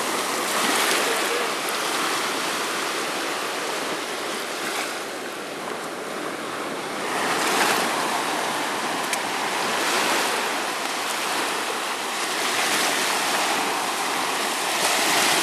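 Water from a simulated storm surge washing over sand and around small scale-model flood-barrier boxes: a steady rush that swells louder every few seconds as surges come in.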